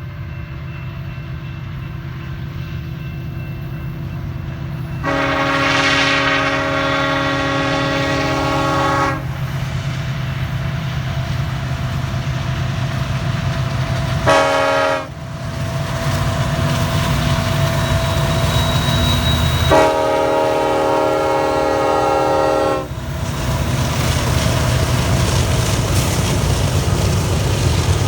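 Union Pacific diesel locomotive passing with its engines rumbling, sounding its multi-chime air horn three times: a long blast about five seconds in, a short one near the middle, and another long one about twenty seconds in.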